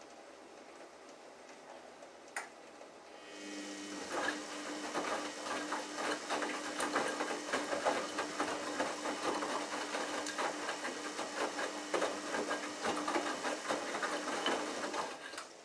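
Samsung Ecobubble WF1804WPU front-loading washing machine tumbling its wet load in the prewash. After a single click, the drum motor starts about three seconds in with a steady hum under the swishing and rustling of the wet laundry, and stops abruptly near the end.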